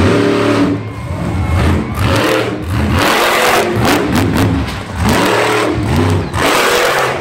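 Monster truck engine revving hard in repeated bursts of full throttle, its pitch rising and falling with each surge, as the truck launches over a row of crushed cars.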